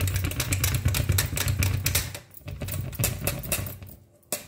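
Rice flour being pressed and patted down by hand in a container: a quick run of soft taps and scrapes over a steady low hum, dropping off briefly about two seconds in and dying away near the end.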